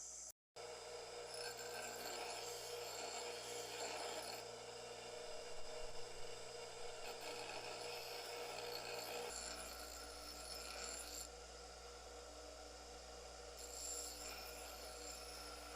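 Grinder rough-grinding steel from a lawnmower blade: a steady abrasive rasp over a constant motor whine, faint, with a brief dropout just after the start.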